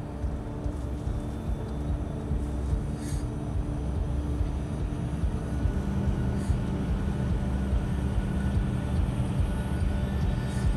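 Inside a car's cabin while driving: a steady low engine and road rumble with a hum that drops in pitch about six seconds in.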